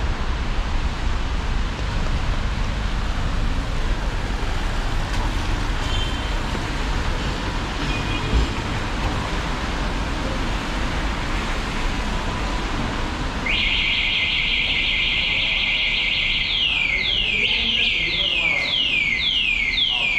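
City street noise, then about two-thirds of the way through a vehicle anti-theft alarm goes off suddenly: a loud steady high electronic tone for a few seconds, then rapid repeated falling sweeps, about two to three a second.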